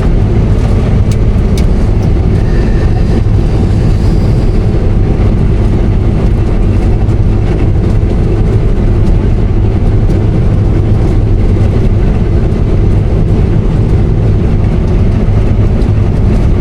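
Combine harvester running steadily under load while cutting wheat, a continuous low engine and threshing drone.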